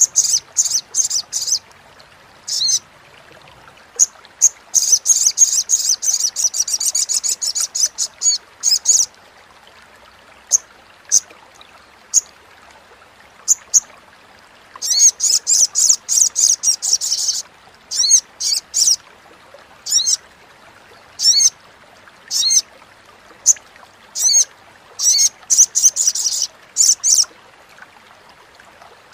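Olive-backed sunbird (sogok ontong) chattering: sharp high-pitched chips, with two longer fast rattling runs, one about five seconds in and another about fifteen seconds in.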